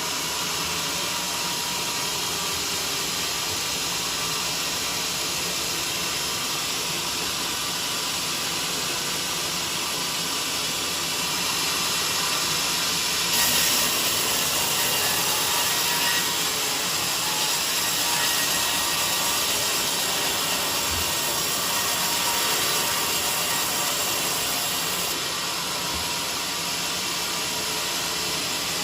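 Band sawmill running steadily while sawing a teak log, a constant mechanical noise with a thin whine. It grows louder and hissier from about halfway in, then eases off near the end.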